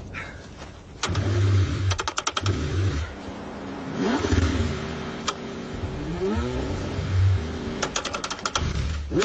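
Car engine cranking over in freezing cold and struggling to start, with bursts of rapid clicking and an engine note that rises and falls.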